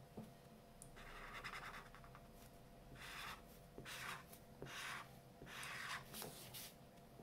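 Faint scratching of a felt-tip art marker stroking across paper while colouring in: one longer stroke about a second in, then about five short quick strokes in the second half.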